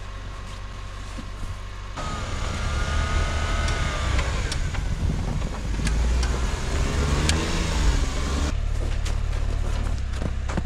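Engine of a small mini truck on rubber snow tracks running at idle, then from about two seconds in working harder as the tracked truck drives through deep snow, with whines that rise and fall. Some eight seconds in it settles back to a steadier run.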